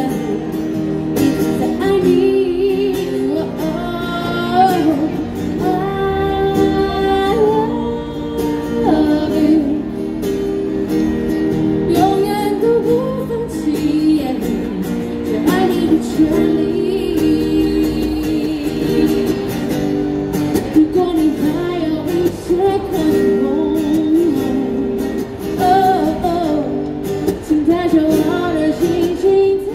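A woman singing a song while strumming chords on an acoustic guitar, her voice sung into a microphone, with held notes throughout.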